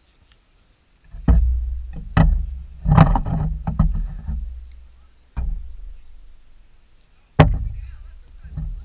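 Loud low thumps and rumbling buffeting on the camera microphone: five sudden hits at irregular spacing, each fading over a second or so.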